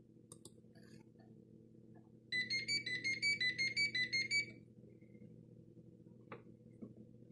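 Cordless home phone ringing: one burst of its electronic ringtone, a fast trill of alternating high notes lasting about two seconds, starting about two seconds in. A couple of faint clicks follow near the end.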